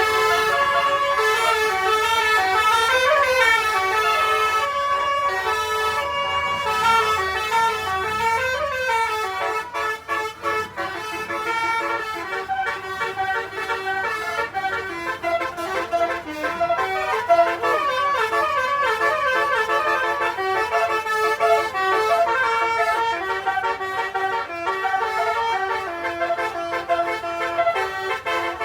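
Basuri 'telolet' multi-tone bus horn playing a continuous melody, its notes stepping from one pitch to the next with a few quick up-and-down glides.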